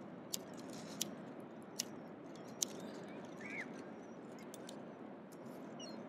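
Steady rush of beach background noise with four sharp clicks in the first three seconds and a single short bird call about halfway through.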